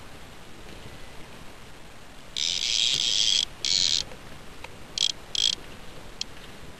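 A fishing reel's drag buzzing in bursts as a hooked fish pulls line off against it. A long burst comes about two and a half seconds in, a shorter one straight after, then a few brief ones near the end.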